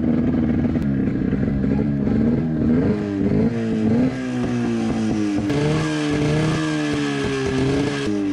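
Off-road motorcycle engine running at low revs while ridden slowly, its pitch wavering up and down with the throttle for the first few seconds, then holding steadier at a lower pitch.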